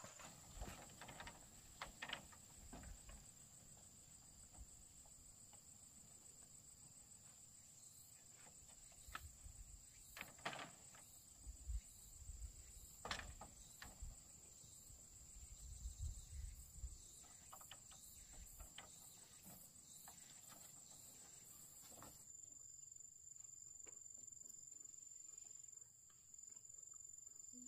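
Faint steady high-pitched chirring of crickets, with scattered soft knocks and low thumps from handling or work nearby.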